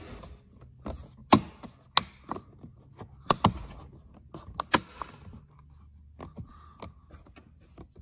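The plastic switch bezel of a 2010 Mazda 6 driver's door being pressed back into the door trim by hand: a series of sharp plastic clicks and knocks as its clips snap into place, with the strongest about a third and halfway through, amid quieter handling rubs.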